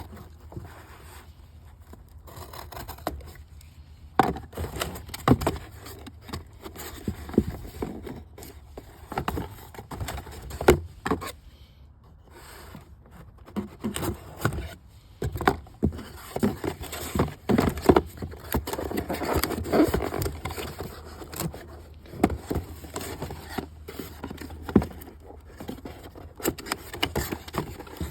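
A new ignition coil's packaging being handled and opened by hand: irregular scraping with many short clicks and knocks.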